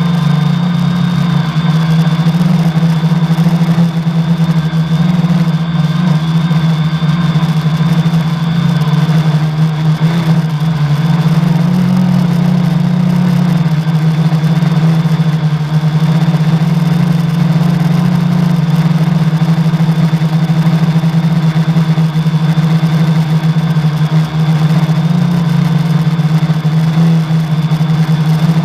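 Quadcopter's four 1000 kV brushless outrunner motors spinning 10x4.5 propellers in flight, a loud steady hum heard on board the airframe, with one motor's bearing bad.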